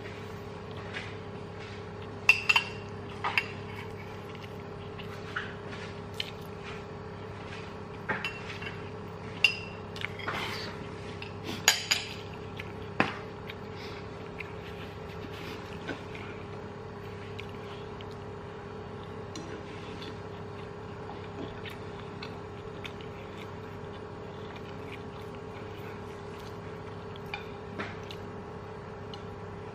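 Metal spoon clinking against a white ceramic bowl, a dozen or so light strikes with short rings in the first half, then only a few faint ticks. A steady low hum runs underneath.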